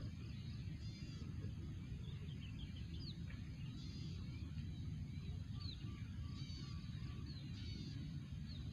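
Birds chirping now and then with short, high calls over a steady low outdoor rumble.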